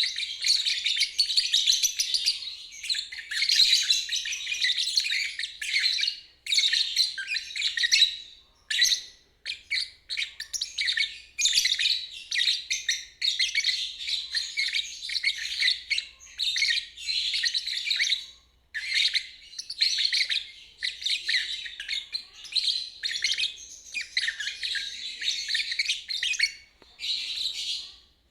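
Lovebird singing 'ngeriwik': rapid, high-pitched chattering trills in runs of one to three seconds, broken by short pauses.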